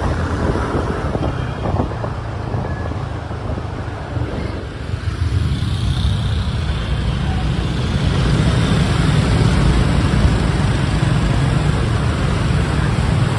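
Street traffic of motorbikes and cars, with wind buffeting the microphone on a moving ride. The rumble grows louder and deeper about five seconds in.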